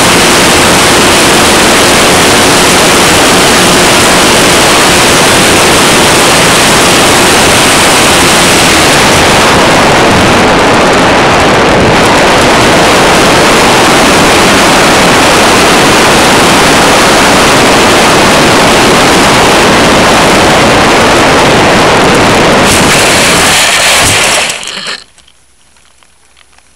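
Loud, steady wind rush over the onboard camera of an Electra RC sailplane gliding in to land. Near the end the glider touches down in grass and the rush cuts off suddenly as it comes to rest, leaving a faint hiss.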